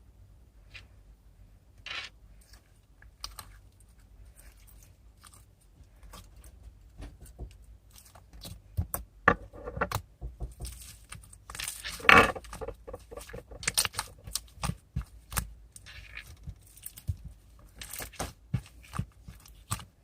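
Small objects being handled close to the microphone: irregular clicks, light clatter and crinkling that grow busier about a third of the way in, with the loudest clatter about twelve seconds in.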